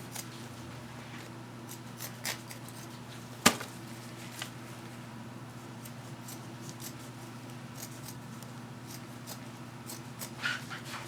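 Scissors cutting a little strip, a series of scattered snips and clicks with one sharp click about three and a half seconds in.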